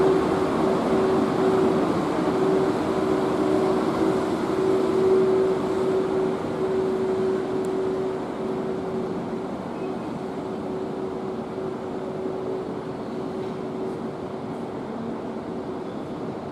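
Container freight train hauled by an EF81 electric locomotive passing slowly: a steady hum over the running noise of the wheels on the rails. It grows gradually quieter as the locomotive draws away and the container wagons roll past.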